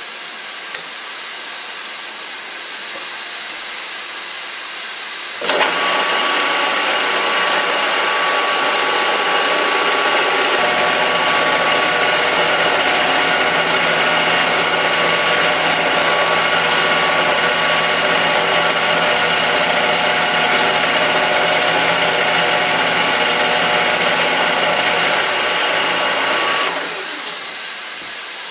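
CNC mill spindle running with an angle cutter milling a gash across the threads of a steel gear hob blank: a steady whine with a few fixed tones that starts abruptly about five seconds in and stops a second or so before the end. A quieter steady hiss comes before it.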